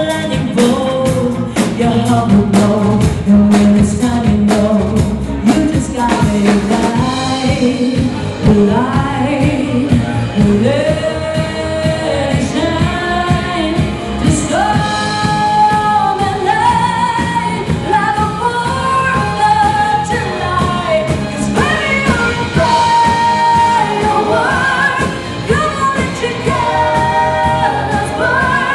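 Live pop band playing: sung vocals over electric guitar, bass and a steady beat.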